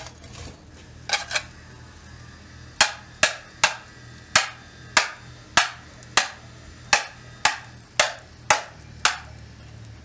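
Hand hammer striking the metal shank ring clamped around a red-hot crucible. A few knocks come first, then an even run of about a dozen sharp blows, roughly two a second, each with a short ring.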